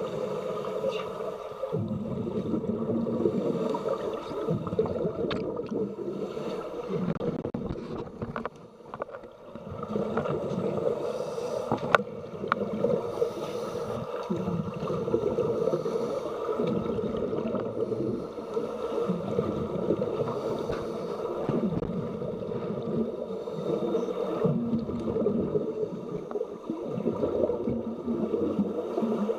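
Muffled underwater sound from a camera in a waterproof housing beneath a swimming pool's surface: a steady low rumble with the gurgling of scuba divers' exhaled bubbles, and a few sharp clicks.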